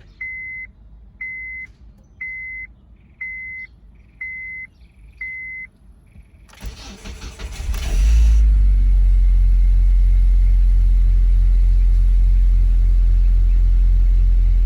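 Honda Civic warning chime beeping six times, about once a second. Then the starter cranks for about a second and a half, and the four-cylinder engine catches on a cold start and settles into a steady idle.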